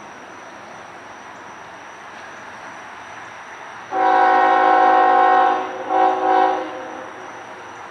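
A passing freight train runs steadily. About four seconds in, a CSX freight locomotive's multi-chime air horn sounds one long blast, then after a brief break two quick short blasts.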